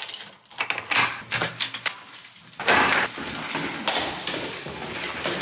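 Keys clicking and rattling in a front-door lock as the door is unlocked. From about two and a half seconds in comes a louder run of footsteps going down a stairwell.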